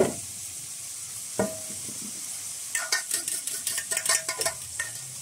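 Goat meat sizzling in oil in a two-handled metal pan. A sharp clink as a steel bowl of chopped onion, garlic and ginger is tipped in against the pan, a ringing clink about a second and a half in, then a metal spoon scraping and knocking against the pan in quick strokes as the mixture is stirred, stopping shortly before the end.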